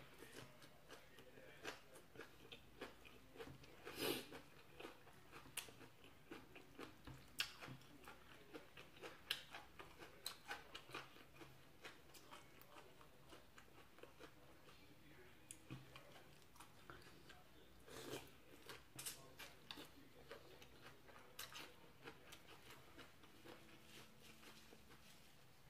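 A person chewing and biting crunchy raw vegetables and pounded long-bean salad, with irregular crisp crunches and a few louder bites scattered through.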